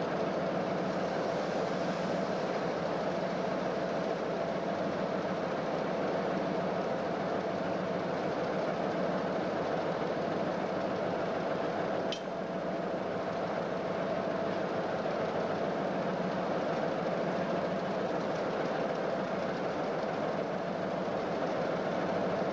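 A PKP class ST44 (M62) diesel locomotive's two-stroke V12 engine running steadily at idle, a constant deep drone. One short click comes about halfway through.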